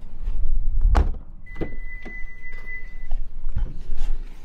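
A car door shut with a thunk about a second in, followed by a steady high electronic beep from the car lasting about a second and a half, with scattered knocks and rustling from someone settling into the seat.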